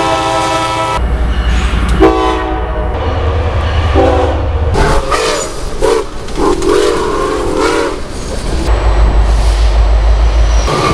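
Locomotive horns and whistles cut together in short snatches: several blasts of diesel locomotive horn chords, then a steam locomotive whistle that wavers in pitch. Near the end comes the low, steady rumble of a passing locomotive.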